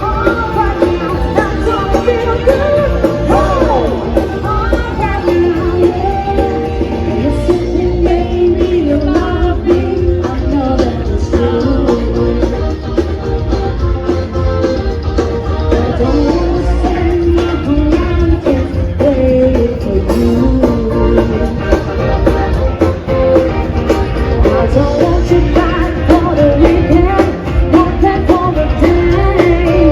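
Music with a singing voice and a steady beat, in the manner of an upbeat pop or rock song.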